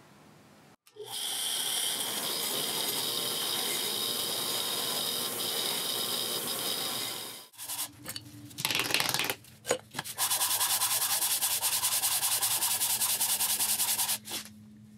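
Sanding of the rusty metal parts of a hand plane, in two spells: a steady scraping for about six seconds, a few short strokes, then a faster, evenly repeated scraping for about four seconds that stops shortly before the end.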